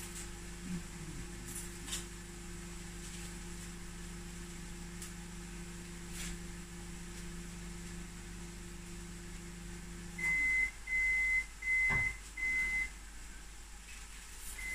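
Microwave oven running with a steady low hum that stops about ten seconds in, followed at once by four short high beeps marking the end of its cycle. A single sharp knock falls among the beeps.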